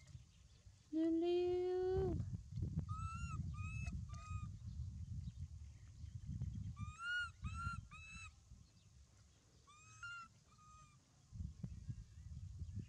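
Animal calls: one loud, drawn-out call rising slightly about a second in, then short, higher, arched calls in three groups of two to four, over a low rough noise.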